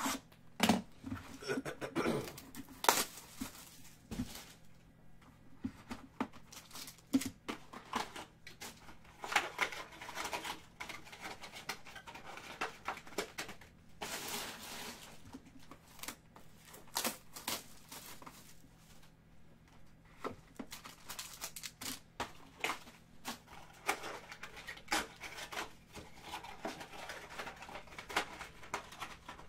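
A trading-card box being opened and its foil-wrapped card packs handled on a table: irregular tearing, crinkling and light clicks of packaging, with a longer tear about halfway through.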